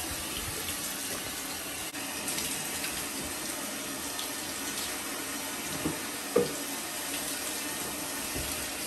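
Water spraying steadily from a handheld shower head as it rinses a wet dog's coat in a bathtub. One brief, louder sound comes about six and a half seconds in.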